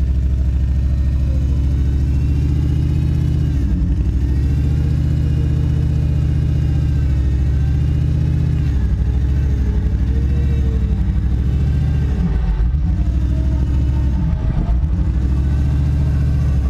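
Four-wheel-drive engines running steadily under load during a mud recovery: a Jeep pulling a stuck Land Rover Discovery out on tow straps. The revs dip and rise several times in the second half.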